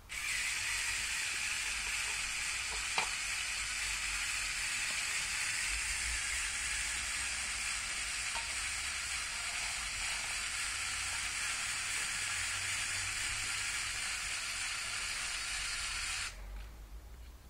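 Lego Technic 42009 crane's electric motor and gear train running steadily, a whirring hiss as the winch lifts and the crane swings its load. There is a click about three seconds in, and the whirr stops abruptly about a second before the end.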